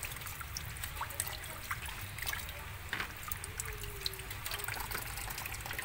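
Water trickling and lightly splashing in a stainless steel basin as hands swish lettuce and cucumbers through it, with scattered small drips and splashes.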